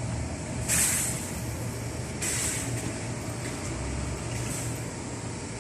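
Steady low machine hum, with two short bursts of hiss about a second and two seconds in.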